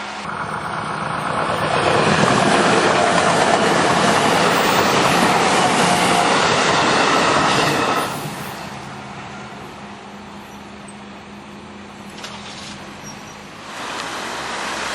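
JR West local electric train passing over the level crossing: the rumble of its wheels on the rails builds over about two seconds, holds steady, and cuts off sharply about eight seconds in as the train clears the crossing.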